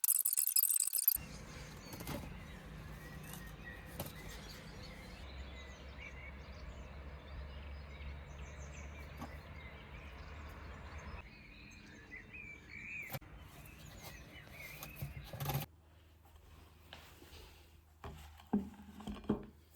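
Outdoor ambience with a low steady rumble and faint bird chirps, with a few abrupt changes in the background along the way.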